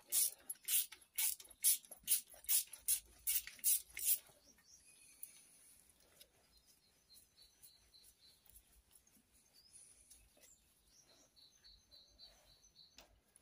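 Hand ratchet wrench clicking in quick back-strokes, about two a second, for the first four seconds while a nut is turned on a Simca Aronde engine. After that only faint taps and a few faint high chirps.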